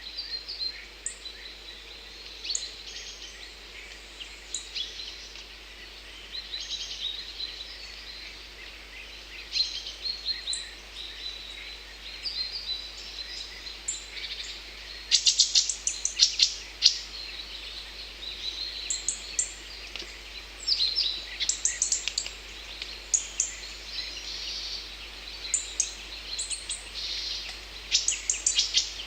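Several songbirds chirping and trilling, with short bursts of rapid repeated notes, over a faint steady hiss.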